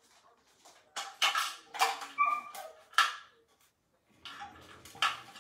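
Puppies giving several short, sharp yips and barks, with a brief whine a little after two seconds in.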